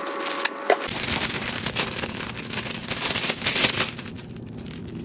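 Thin plastic Earth Rated dog poop bag pulled from its roll and opened out by hand, crinkling and rustling. The crinkling is loudest over the first few seconds and fades near the end.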